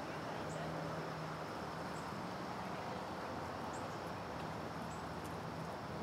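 Steady wind noise with a low hum beneath it and a few faint, short, high bird chirps.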